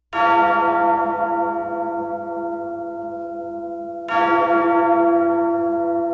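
A bell tolling twice, about four seconds apart, each stroke ringing on with many overtones and slowly fading, as the opening of a soundtrack laid over the footage.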